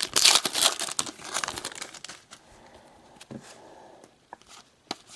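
Foil wrapper of a trading card pack crinkling and tearing as it is ripped open, for about two seconds, then a few soft clicks.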